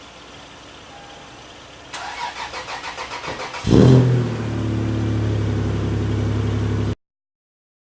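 A car engine is cranked over by its starter for a couple of seconds, catches with a loud burst, and settles into a steady idle. The sound cuts off suddenly near the end.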